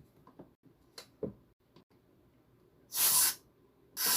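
Two short hissing puffs of air blown into a phone's charging port to clear out loosened dirt, the first about three seconds in and the second just before the end, after a few faint handling clicks.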